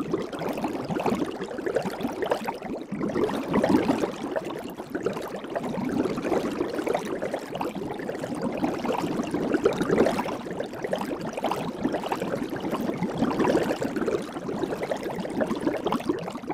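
Soap bubbles fizzing and popping: a dense, continuous crackle of tiny pops.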